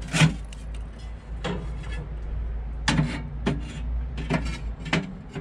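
Ceramic half-moon heat-reflector stones of a kamado grill knocking and scraping against each other and their metal rack as they are set in place, a series of about seven sharp clunks.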